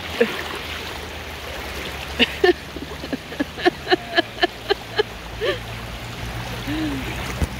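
Fast-flowing flood water rushing steadily around a man's legs as he wades across against the current. In the middle comes a quick run of short, sharp sounds, several a second.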